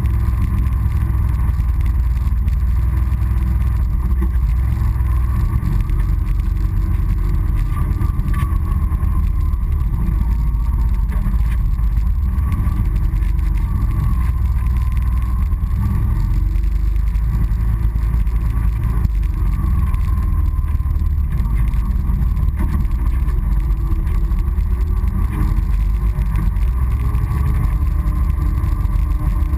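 Honda Foreman ATV's single-cylinder engine running on the move, heard from a camera mounted on the machine, over a constant heavy low rumble; its pitch rises and falls gently with the throttle.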